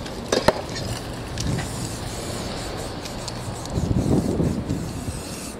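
Aerosol spray paint can hissing lightly, with rubbing and handling noises on the canvas and a sharp click about half a second in.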